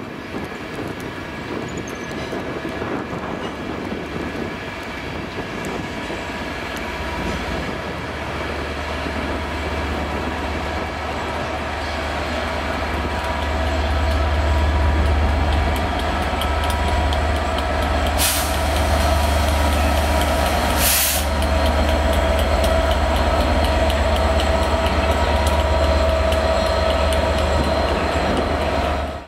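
Class 67 diesel locomotive's engine running with a steady low hum, growing louder over the first half as it draws near. Two short hisses of air sound about 18 and 21 seconds in.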